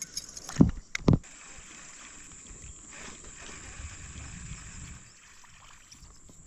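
Two dull thumps against a kayak hull, about half a second apart, near the start. They are followed by quieter rustling and knocking from the kayak and gear as it moves on the water.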